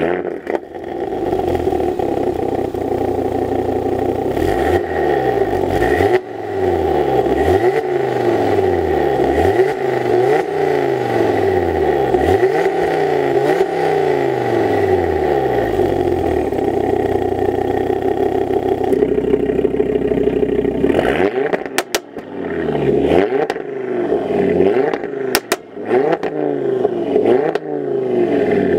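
Audi RS3 8V's 2.5 TFSI turbocharged inline five-cylinder, with the catalysts replaced by decats and an aftermarket valved exhaust, running just after start-up and revved in a string of short blips about a second apart with the exhaust valves closed. About 20 s in, with the valves opened, the revs come through rawer and louder, with sharp cracks from the exhaust.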